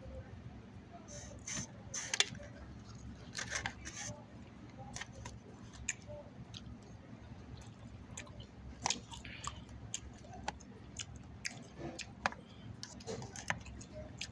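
Close-up chewing of grilled chicken salad, with irregular wet mouth smacks and clicks.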